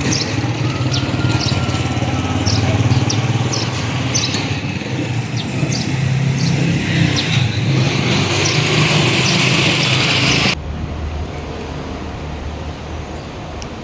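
Steady vehicle engine and road noise with a strong low hum. About ten seconds in, it cuts abruptly to a quieter, duller vehicle rumble.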